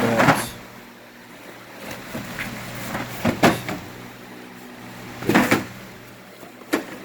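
Steel drawers of a Snap-on tool chest sliding on their runners, with two short sliding rushes about three and five seconds in and a sharp click near the end.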